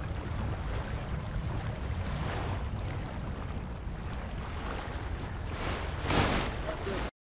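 Wind rumbling on the microphone over open water, with a steady rush of water noise. A louder swish of water and wind comes about six seconds in.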